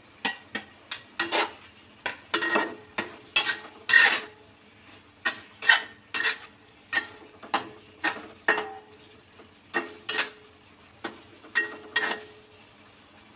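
Slotted stainless steel spatula scraping and clanking against a honeycomb-lined stainless steel wok while stir-frying, with irregular strokes about one or two a second, some ringing briefly. The strokes stop near the end.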